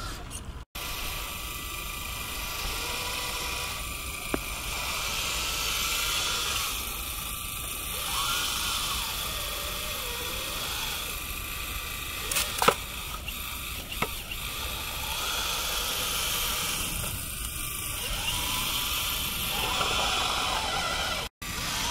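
Premacon Liebherr 576 RC wheel loader working, its hydraulic pump and electric motors whining and rising and falling in pitch over a steady hiss, with a few sharp clacks about halfway through.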